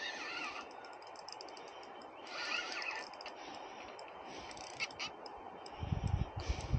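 A crow-like bird cawing twice, about two and a half seconds apart, over faint scattered ticking. A low rumble comes in near the end.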